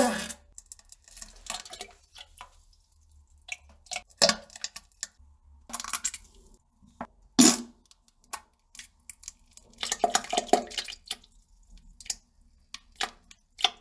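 Toilet sounds: a string of short, irregular splashes and knocks, the loudest right at the start.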